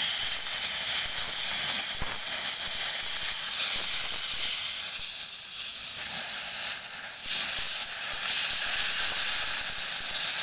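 Oxy-fuel cutting torch hissing steadily as its flame and oxygen jet cut through a steel shaft.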